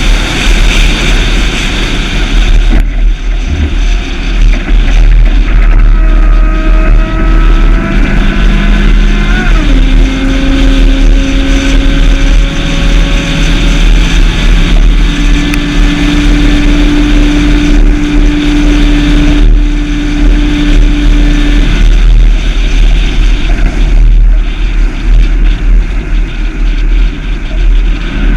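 Land Rover 4.2 supercharged V8 engine running with a heavy, dense low rumble. From about five seconds in a moaning whine joins it, rising slightly, then dropping in pitch near ten seconds and holding steady until a little past twenty seconds.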